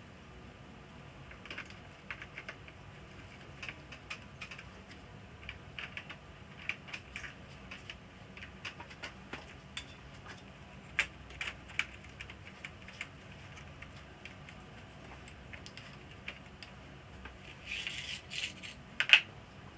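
Irregular light clicks and taps of small hard parts and tools being handled, with a louder clatter near the end.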